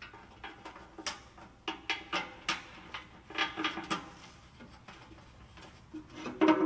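Irregular light metallic clinks and taps of bolts and parts being handled against the underside of a truck's engine, thinning out after about four seconds.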